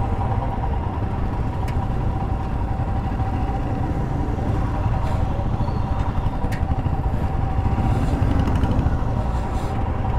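Motorcycle engines idling and running with a steady low rumble, under a steady high whine, with two sharp clicks, one about two seconds in and one past the middle.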